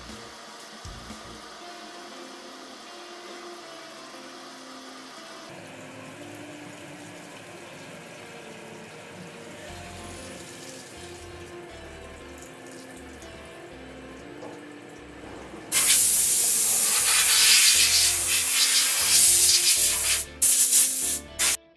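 Background music, then about three-quarters of the way through a loud hissing spray of coolant inside the CNC mill's enclosure starts suddenly. Near the end it breaks into a few short bursts and cuts off.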